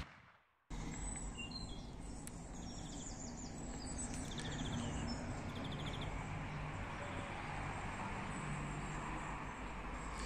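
Outdoor ambience: a steady low background rumble with small birds chirping and giving short rapid trills now and then, mostly in the first half.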